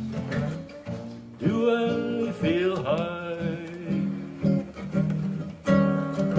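Acoustic guitar played by hand, a run of plucked notes and chords ringing together.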